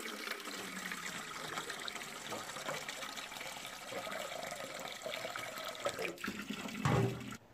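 Tap water pouring from the faucet into a stainless steel pot, splashing onto the water already in it as the pot fills. There is a single thump near the end.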